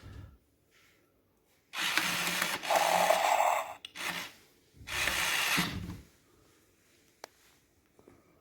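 Furby toy making noises: a noisy sound of about two seconds with a brief hum in its middle, a short blip, then a second noisy sound of about a second.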